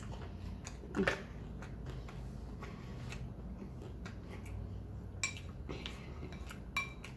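Metal cutlery clinking against a plate several times, mostly in the last two seconds, with short ringing tones, over a low steady hum. A brief voiced sound comes about a second in.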